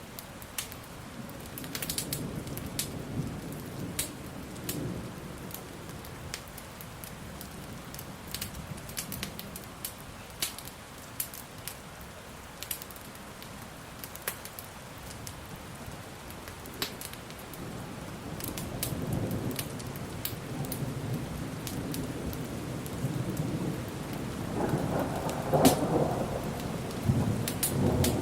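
Steady rain with sharp crackling pops from a burning log fire scattered throughout. Low thunder rumbles in past the middle, swelling to its loudest near the end.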